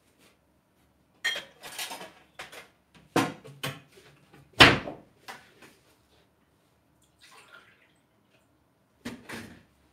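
Kitchen cabinet door and dishes knocking as a glass of water is fetched: a handful of sharp knocks, the loudest about halfway through, and a brief run of water.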